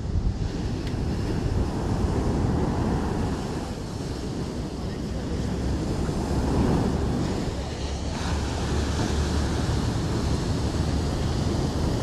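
Ocean surf breaking and washing up a sandy beach in a continuous wash, swelling louder as a wave breaks about six seconds in, with wind rumbling on the microphone.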